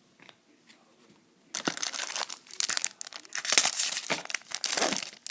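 Crinkling and tearing of a trading-card pack's wrapper being ripped open and handled, starting about a second and a half in and going on in a busy run of crackles.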